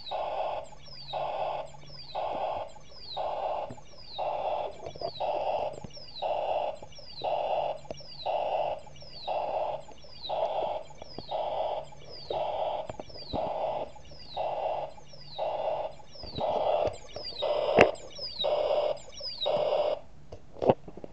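Electronic sound effect from a snap-together electronics kit's small speaker, repeating about once a second: a quick falling whistle followed by a short lower tone. Two sharp clicks come near the end.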